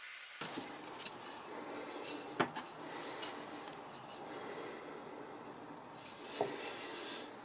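Gritty rubbing of a cast-iron hand plane's sole on sandpaper, with two sharp metallic knocks as the plane is handled.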